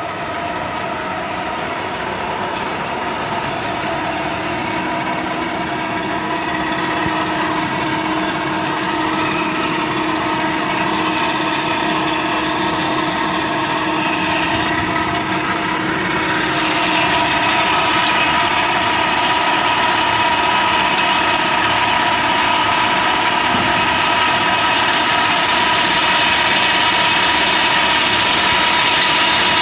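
Slag processing plant machinery running steadily: a dense mechanical din with several steady hum tones. The sound changes and grows a little louder about halfway through.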